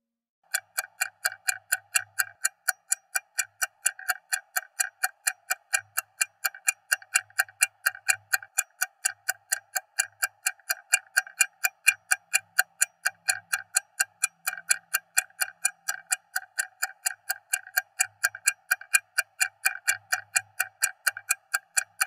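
Stopwatch ticking rapidly and evenly, about five sharp ticks a second, starting about half a second in.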